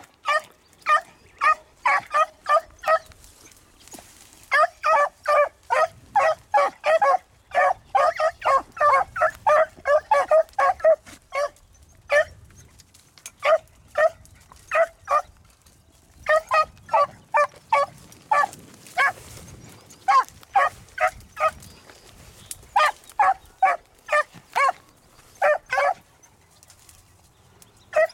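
Beagle barking in runs of short, rapid chop barks, about three a second, broken by pauses of a second or two: a rabbit hound giving mouth as it works a rabbit's trail through brush.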